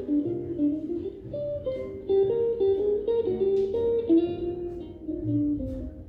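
Background music: a guitar picking out a melody over bass notes.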